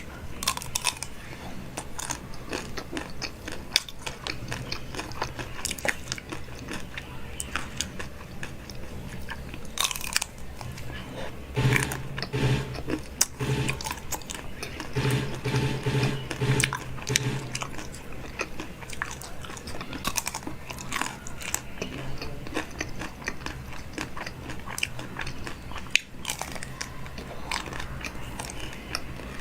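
Close-miked biting and chewing of crunchy food: many crisp, irregular crunches.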